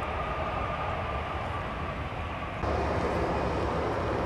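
Jet engines of a Swiss Airbus A320-family airliner on the runway: a steady roar with a high whine. About two-thirds of the way through it cuts suddenly to the louder, deeper jet rumble of another twin-engine airliner on final approach.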